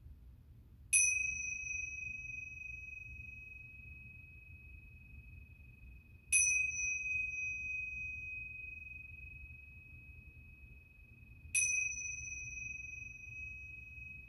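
A small high-pitched bell struck three times, about five seconds apart, each strike ringing on and fading slowly.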